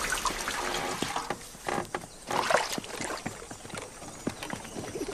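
Farmyard ambience of scattered knocks and clatter from work around a wooden cart, with horse hoofbeats.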